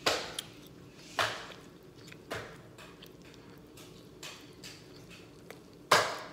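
A person chewing and biting food close to the microphone. There are sharp bursts about a second apart at first, then a pause, then the loudest one near the end.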